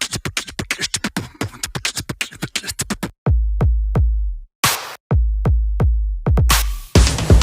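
Electronic music with a drum-machine beat: a fast run of sharp ticks, then heavy deep bass hits coming in about three seconds in, with a brief drop-out midway.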